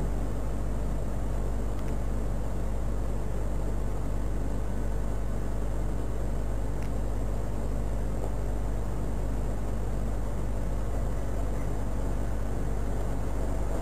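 Steady low hum with an even hiss, the background noise picked up by a shop's security-camera microphone, with a couple of faint ticks.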